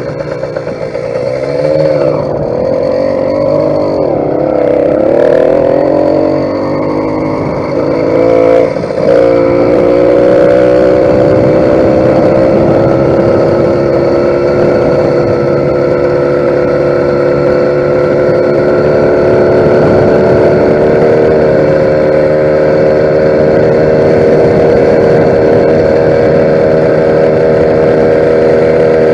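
YD100 two-stroke motorized bicycle engine revving up and down for several seconds, then running steadily at high revs, its pitch slowly climbing.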